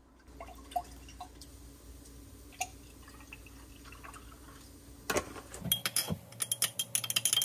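Almond milk and then cold-brew coffee poured into a glass mason jar, a quiet trickle. About five seconds in, a stirrer starts clinking rapidly against the glass as the drink is stirred.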